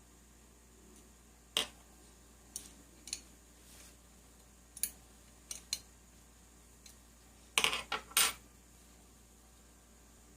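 Metal tools and engine parts clinking and tapping while a flywheel is worked off a Zenoah G320 engine. Sharp, irregular clicks come every second or so, with a quick cluster of louder clinks about three-quarters through.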